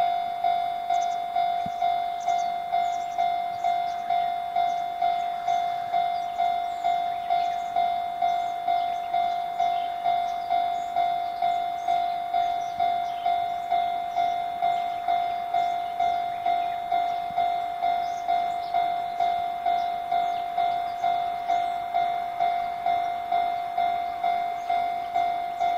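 Railway level-crossing warning bell ringing in an even, repeating clang of about one and a half strikes a second, one steady ringing note each time: the signal that a train is approaching the crossing.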